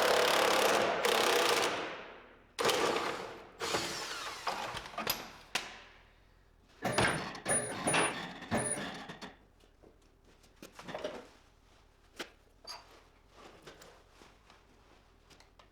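A power tool run in several bursts while bolts are worked loose: one long burst of about three seconds, then shorter ones, with a few light clicks and knocks of tools and parts after them.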